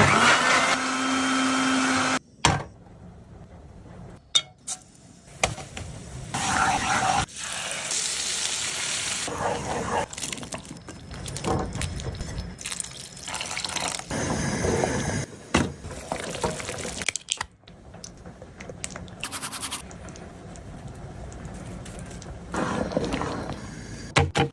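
Cooking sounds in a string of short clips that cut abruptly every second or few: steady hissing, liquid-like noise from food in a pan, now louder, now softer, with some scraping.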